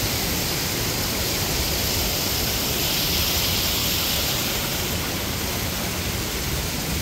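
Water rushing steadily over a concrete weir: an even, unbroken roar of falling water.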